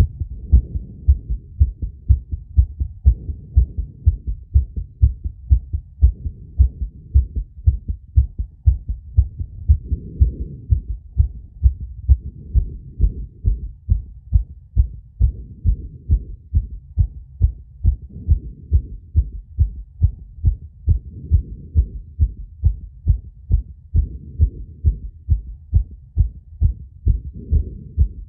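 A human heart recorded through a phonocardiogram sensor, beating in a steady, even rhythm of low-pitched thumps.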